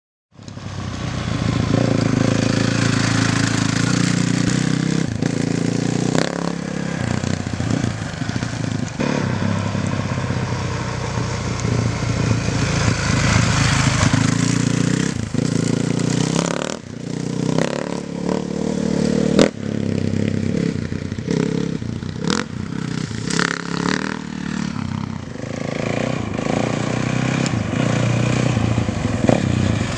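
Honda CRF450 dirt bike's single-cylinder four-stroke engine revving hard and easing off again and again as it is ridden on a dirt track, the pitch rising and falling through the gears. Scattered sharp clicks cut through the engine sound.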